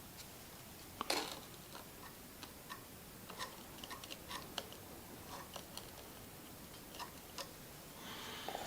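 Scattered light clicks and taps from handling small tools and parts at a workbench, with a sharper click about a second in and a brief scratchy rub near the end.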